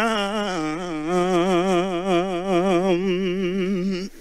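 A man singing unaccompanied, holding one long note with a wide, even vibrato that breaks off about four seconds in.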